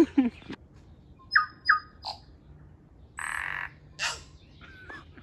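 A tui calling: two short clear notes, then a raspy wheezing sound and a short wavering gliding note near the end.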